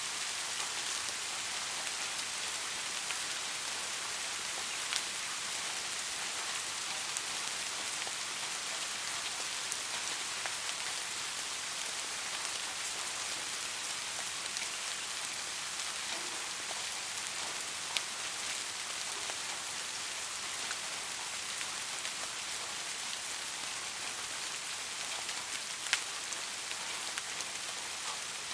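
Steady rain falling on a surface, an even hiss with scattered sharper drop ticks, the clearest about five seconds in, past halfway and near the end.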